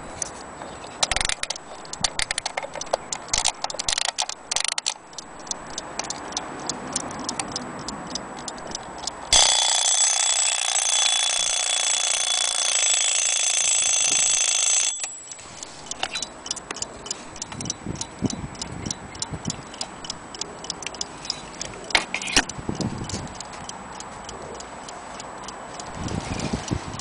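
Small mechanical alarm clock ticking steadily, with some knocks as it is handled early on. About nine seconds in, its alarm bell rings loudly for about six seconds, then cuts off suddenly.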